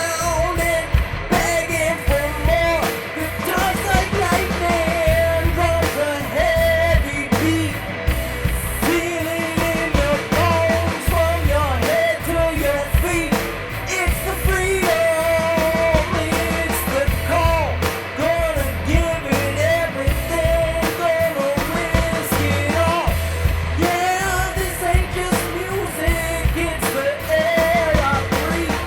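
Loud rock music in an instrumental break with no words sung: a lead line bending in pitch over heavy drums and bass.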